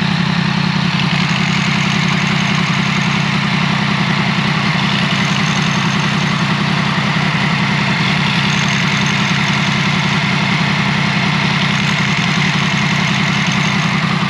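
Yamaha MT-10's 998 cc crossplane inline-four idling steadily, recorded close to the clutch cover.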